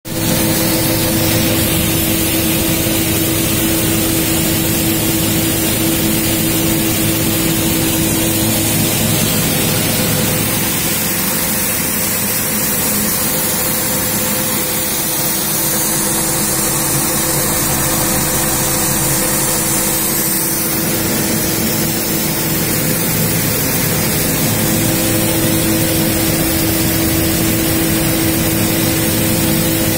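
Seed cleaning machine for dal running steadily: an even, loud machine noise with a steady motor hum, the hum weaker for a stretch in the middle.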